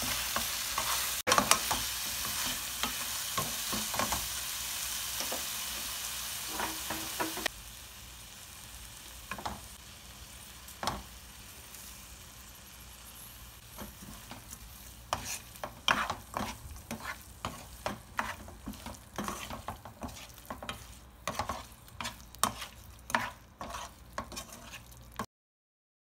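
Tofu and egg stir-fry sizzling in a nonstick frying pan while a wooden spatula stirs and scrapes through it. About seven seconds in, the sizzling drops away abruptly, leaving a run of spatula scrapes and taps against the pan.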